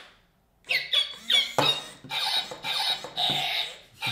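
Squeakee Balloon Dog interactive toy reacting excitedly to three squeaks of its squeaky toy, playing balloon-squeak and yapping sounds from its speaker. A quick run of short squeaks starts about a second in, followed by longer squeaky, rubbery noises.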